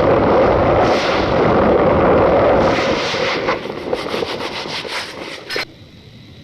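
Cornstarch powder being squeezed and crushed close to the microphone: a dense, loud crunching that thins into a run of separate squeaky crackles, then stops suddenly near the end.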